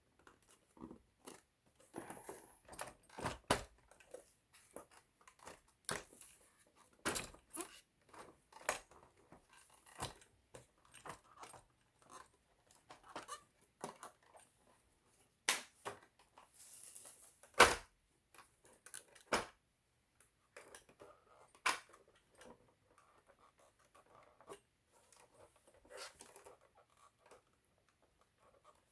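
Irregular clicks, taps and light rattles of hands handling the parts of an opened computerized sewing machine, with a sharp knock a little past halfway as the loudest sound.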